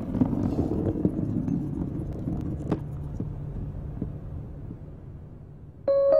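Low rumble of a bus engine fading away steadily, with a few faint clicks. Near the end an electric piano chord comes in sharply.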